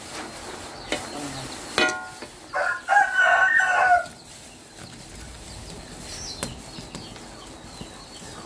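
A rooster crowing once about two and a half seconds in, a short note followed by a longer held one. A couple of light metal knocks of a spatula against the wok come before it.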